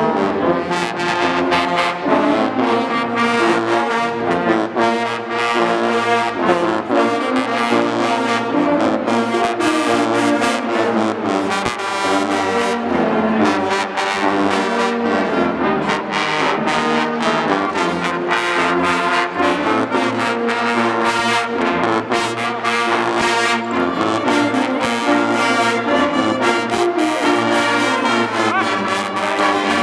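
Guggenmusik carnival band playing loudly: trumpets, trombones, saxophones and sousaphones over a steady drumbeat, without a break.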